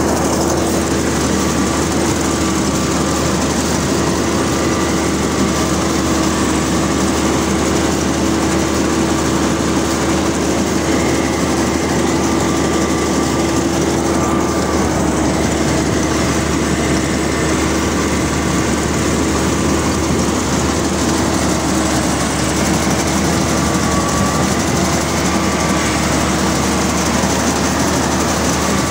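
Rice combine harvester running steadily while it cuts and threshes rice, heard from the operator's seat: a loud, even engine and machinery drone with a constant whine over it.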